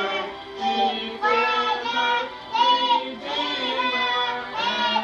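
Children and a woman singing a song together, the notes held and gliding, with short breaks between phrases.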